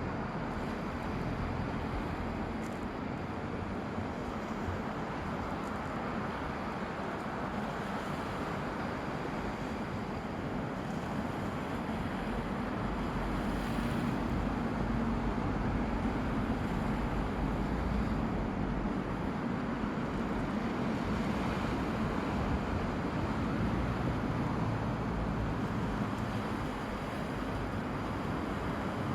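Sea surf washing onto the shore in a continuous rush of breaking waves, swelling louder for a stretch in the middle, with a low wind rumble on the microphone.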